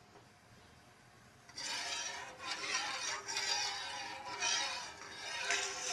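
Metal spoon scraping against the bottom of a pan of milk as it is stirred, starting about a second and a half in and going in uneven strokes. The full-cream milk is being stirred continuously while it is reduced and thickened, so it does not stick to the bottom.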